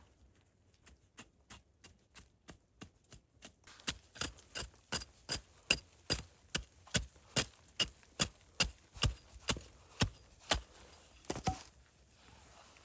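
A steady series of sharp knocks, as of repeated strikes on wood: faint and quick at first, about three a second, then much louder from about four seconds in at about two and a half a second, ending with a couple of scattered knocks near the end.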